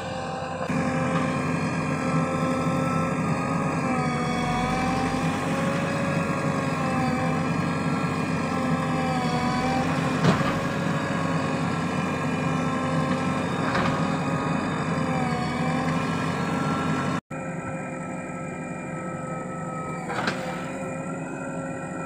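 JCB 3DX backhoe loader's diesel engine running steadily at working revs, its pitch sagging and recovering a few times under load from the digging work. A few sharp knocks about 10, 14 and 20 seconds in.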